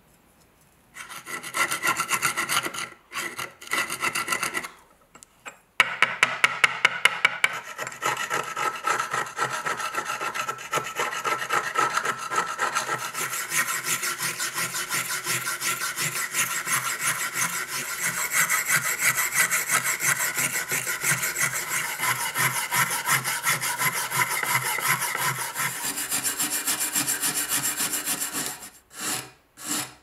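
Steel wire brush scrubbing rust off an old iron pocket-knife blade on a wooden board: fast back-and-forth scratchy strokes, in short broken bursts at first, then steady scrubbing with a brief pause near the end.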